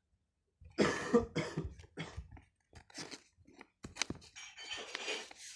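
Paper crinkling and rustling in irregular bursts as a handmade paper gift packet is unwrapped by hand.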